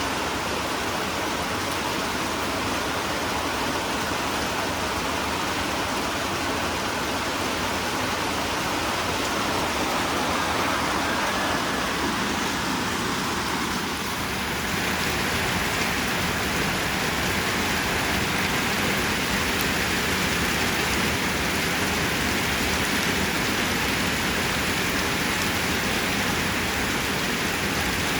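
Steady rain falling, a constant hiss. About halfway through it turns brighter and slightly louder.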